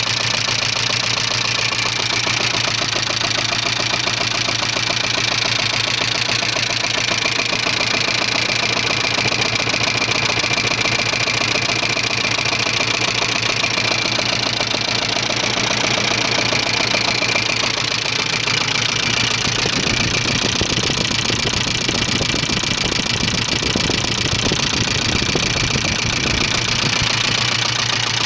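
Subaru Leone's EA82 flat-four engine running at a steady speed with a rapid, continuous knock; a deeper rumble joins for a few seconds past the middle. The owner does not know what part is knocking.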